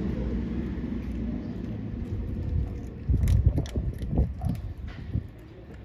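Low rumble of road traffic passing in the street, fading over the first couple of seconds, then a cluster of low thumps and small clicks about three seconds in.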